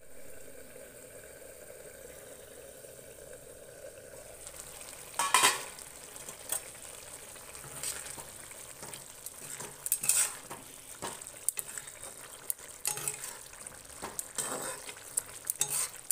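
Spinach sizzling and simmering in a pan, a steady hiss. From about five seconds in, a steel spatula stirs it, with about six sharp scrapes and clinks against the pan.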